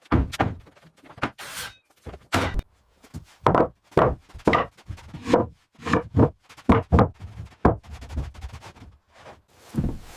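A run of irregular knocks and thuds, roughly two a second with a short pause near the end, like hand work fitting fixtures.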